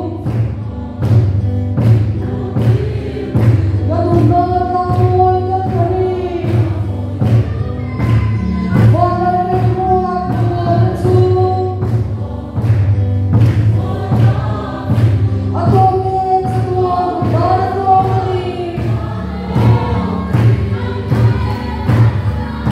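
Congregation singing a hymn together in many voices, with a large drum beaten in a steady beat of about two strokes a second.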